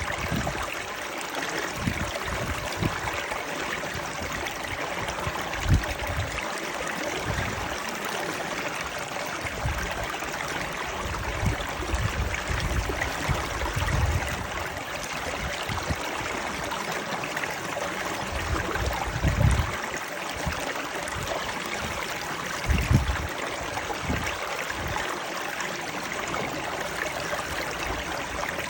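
Stream water flowing steadily in a continuous rushing splash, with a few brief low thumps standing out.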